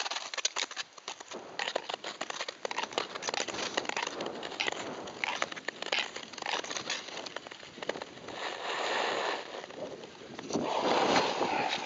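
Ice skates scraping and gliding over natural lake ice, with a dense run of irregular crackling clicks. The rushing noise grows louder near the end.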